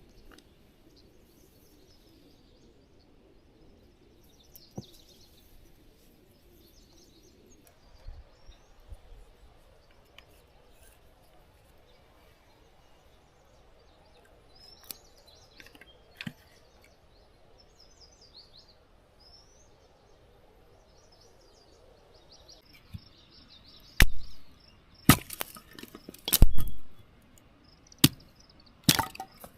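Quiet riverside with birds chirping faintly now and then, then a run of loud sharp knocks and thumps in the last few seconds.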